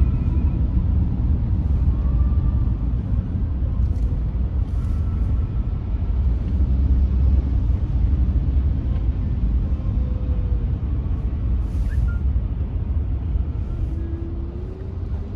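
Car driving through city traffic: a steady low rumble of engine and tyres, with short hisses twice, a few seconds in and again later on.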